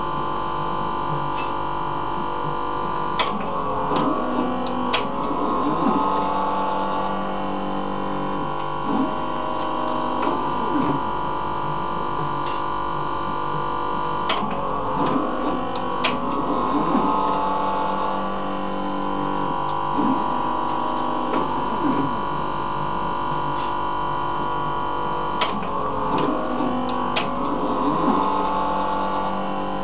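Leica CV5000 automated coverslipper running: a steady machine hum with several held whining tones. Three times, roughly every ten seconds, comes a cluster of sharp clicks and rising and falling motor whirs as the mechanism moves a slide through a cycle.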